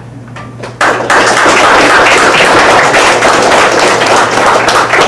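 Audience applauding. It starts suddenly about a second in as dense, loud clapping and begins to die away near the end.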